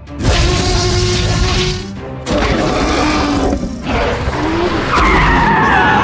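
Dubbed toy-video sound effects: car engines and skidding tyres, then, about five seconds in, a loud dinosaur roar that falls in pitch.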